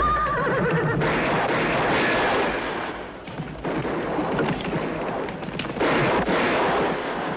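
Film soundtrack of a street gunfight: a dense, continuous din of gunshots that starts abruptly. It thins out about three seconds in and grows loud again about six seconds in.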